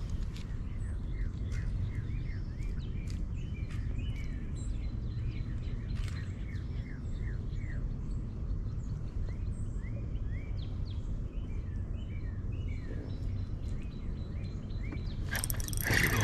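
Small birds chirping in short repeated notes over a steady low rumble. About a second before the end, a spinning reel's handle is cranked, its fast clicking rising loud.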